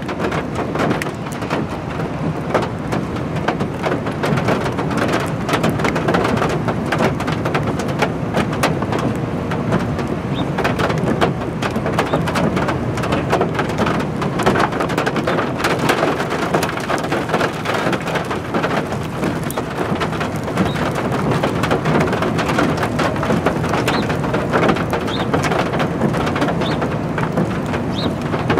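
Steady rain falling, a dense patter of drops with a low rumble beneath it. A bird chirps faintly a few times near the end.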